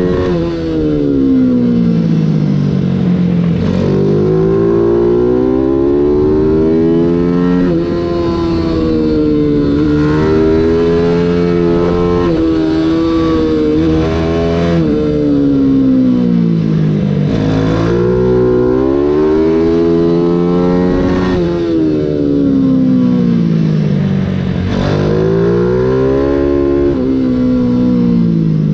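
Mini GP 140 race bike engine at racing speed, revving up hard through the gears with quick upshifts, then dropping in pitch as it slows for each corner, over and over.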